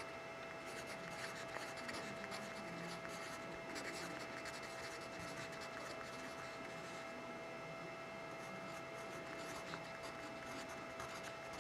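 Faint scratching of a yellow wooden pencil writing words and numbers on paper, in short runs of strokes with brief pauses between.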